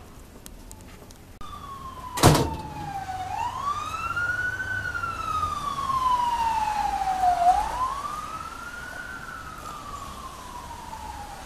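An emergency vehicle's siren wailing, its pitch slowly rising and falling with a cycle of about four seconds. A single sharp click about two seconds in is the loudest sound.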